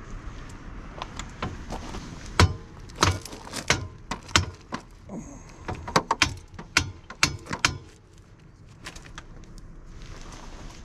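Hand tools and metal parts clicking and knocking irregularly as a bolt is worked into the front steering knuckle of a Can-Am X3 side-by-side. The clicks come in an uneven run and stop about eight seconds in.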